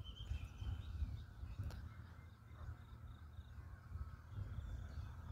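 Outdoor ambience: wind buffeting the phone's microphone as an uneven low rumble, with faint bird calls in the background.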